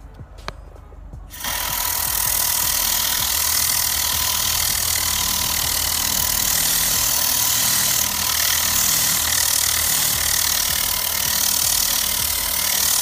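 Tornado air-powered cleaning gun blasting compressed air at car floor carpet, its solution valve opened slightly so cleaner sprays out with the air: a loud steady hiss with a low buzz underneath. It starts about a second and a half in and cuts off suddenly at the end.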